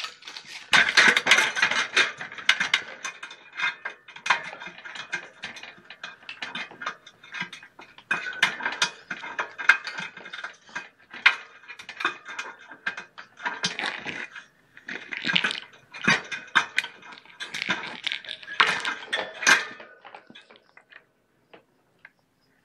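A kitten rubbing and bumping its fur against the microphone at very close range: irregular scratchy rustling and clicks in bursts, stopping near the end.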